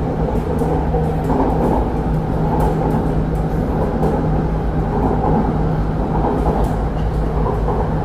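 Inside a moving MRT Purple Line metro train: a steady rumble of the carriage running on the rails, with a constant low hum underneath.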